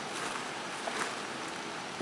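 Steady outdoor background hiss with a few faint rustling clicks in the first second.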